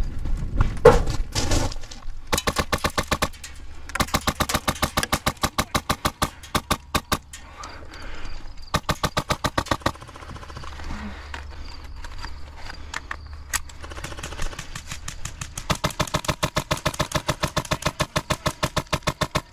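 Airsoft guns firing in rapid full-auto bursts, several strings of fast, evenly spaced shots with short pauses between them; the longest strings come a few seconds in and over the last few seconds.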